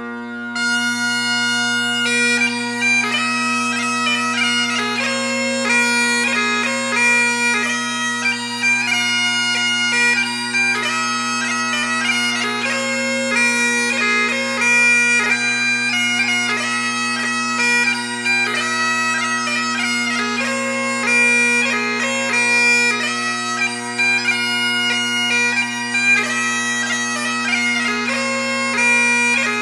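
Bagpipe music: a melody of changing notes played over steady, unbroken drones, the melody coming in about half a second in.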